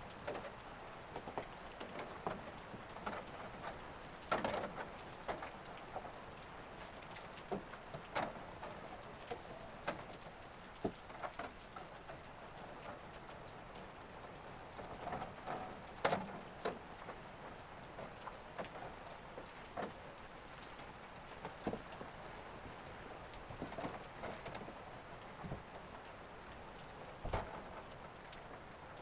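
Irregular clinks and knocks of steel reinforcing bars being handled and bent into place, over a steady background hiss.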